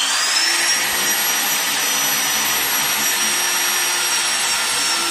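Bosch power drill running steadily as it bores a hole into a wall, its motor whine rising briefly at the start as it comes up to speed.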